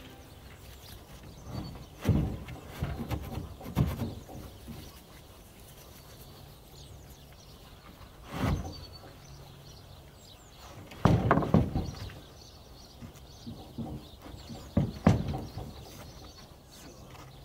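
Large OSB floor boards being shifted and pressed into place by hand: scattered knocks and scraping thuds, with a cluster of louder knocks about eleven seconds in and another near fifteen seconds.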